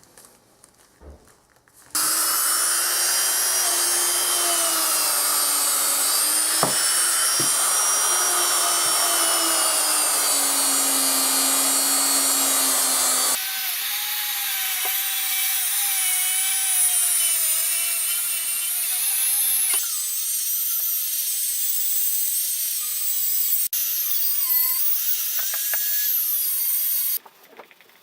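Handheld electric power tool running at high speed against a workpiece, its motor whine dipping and rising with the load. The sound changes abruptly twice.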